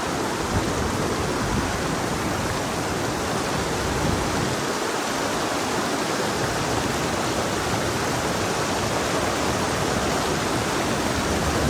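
Glacial snowmelt stream rushing steadily over a stony bed.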